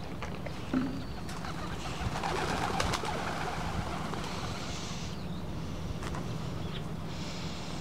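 Feral pigeons cooing and scuffling as they squabble over food, with a noisy flurry of wing flaps about two to three seconds in.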